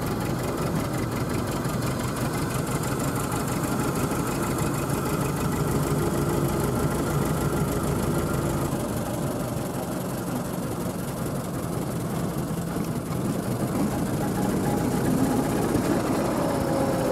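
Ford Model T's four-cylinder engine running steadily as the car is driven along, a fast even chugging heard from the open car.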